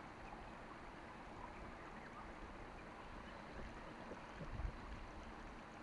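Faint steady outdoor background noise, with a brief soft low thump about four and a half seconds in.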